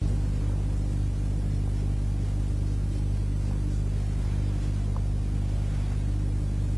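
Steady low electrical hum with a layer of hiss, switching on abruptly at the start and holding level throughout: mains hum in the recording's audio.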